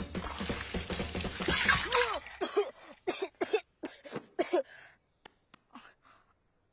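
Liquid from a jug splashing over a boy's head, followed by a string of short coughs and gasps as he comes round from a faint.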